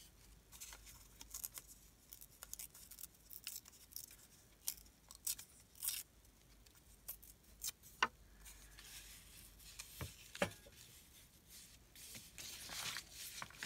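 Paper scraps being handled and laid down on a collage page: faint, irregular rustles, crinkles and light taps.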